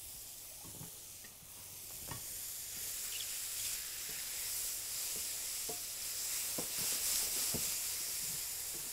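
Sliced mushrooms and diced onion sizzling in oil in a stainless-steel frying pan, getting louder after about two seconds. They are being stirred with a silicone spatula, which knocks lightly against the pan now and then.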